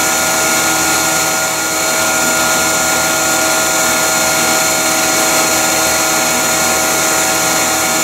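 Bee vac, a shop-vac motor drawing through a hose, running steadily with a whine as bees are sucked off the comb.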